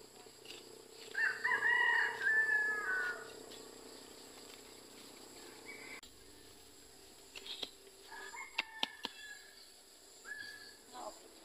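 A rooster crowing once, about a second in, a single call lasting about two seconds. Later come a few fainter short calls and sharp clicks.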